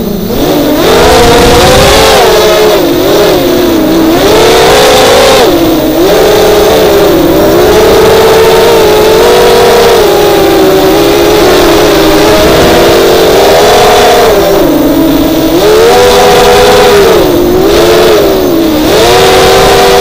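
Four brushless motors (Lumenier 2206, 2000 kv, on 4S) spinning HQProp Bullnose 5x4.5 propellers on an FPV racing quadcopter, heard up close on the quad itself. The whine rises and falls continuously as the throttle is worked through the flight, with a brief drop in pitch and loudness right at the start.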